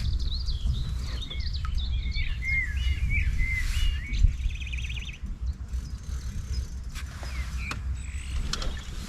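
A songbird singing a quick run of chirps and warbling whistles for the first four seconds or so, over a steady low rumble, with a sharp knock about four seconds in.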